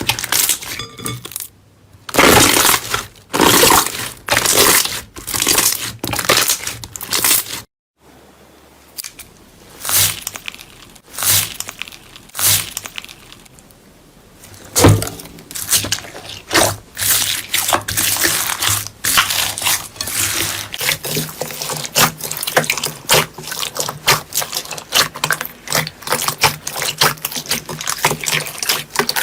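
Slime being squeezed and pressed by hand: a run of irregular wet squishes and crackles. A brief silent cut comes about eight seconds in, after which the squishing is quicker and busier.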